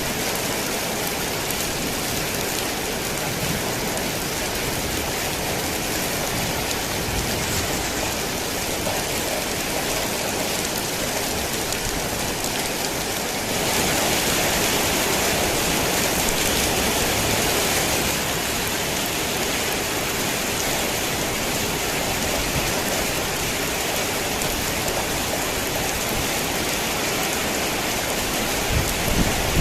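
Heavy rain on a tin roof, a dense steady hiss that swells louder for a few seconds about halfway through. Thunder begins to rumble low right at the end.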